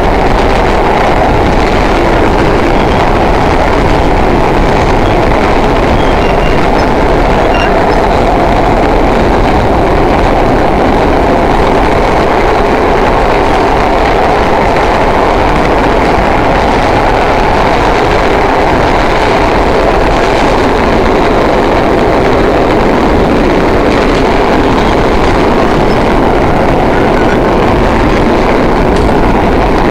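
Vintage New York City subway cars of the Holiday train running through a tunnel: a loud, steady noise of wheels on rails and the moving car, unbroken throughout.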